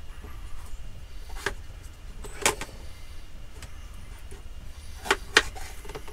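A knife knocking sharply on a chopping board as peppers are cut: four sharp knocks, the last two close together near the end and the loudest. A steady low hum runs underneath.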